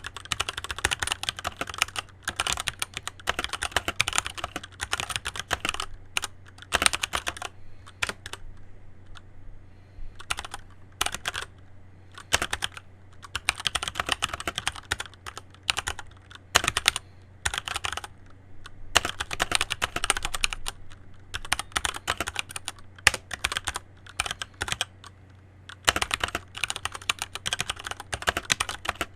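Keychron C1 mechanical keyboard being typed on in bursts of rapid key clicks, separated by short pauses.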